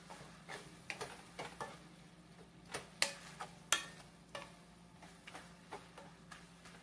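Wooden spoon stirring and scraping ground pork and onions as they fry in a stainless steel pan, with irregular knocks of the spoon against the pan, two louder ones about three seconds in. A low steady hum runs underneath.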